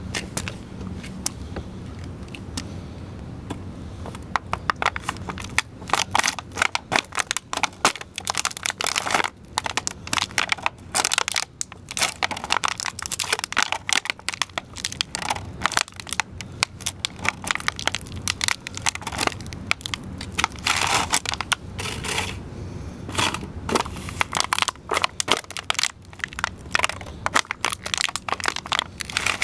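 Chukka boots stomping on and crushing two empty plastic shrimp trays with clear domed lids: dense runs of crackling, crunching plastic, beginning a few seconds in and going on in spells with short pauses.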